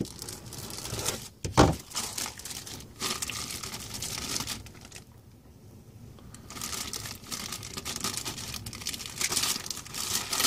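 Clear plastic bags around plastic model-kit sprues crinkling and rustling as they are handled, with one sharper knock about one and a half seconds in and a short lull in the middle.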